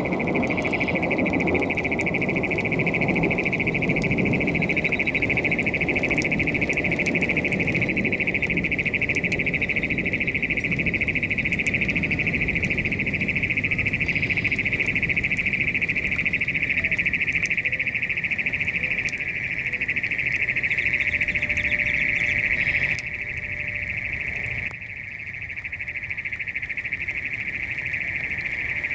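A steady, high-pitched trilling chorus of calling animals. A low rumbling noise sits under it for the first several seconds and fades away.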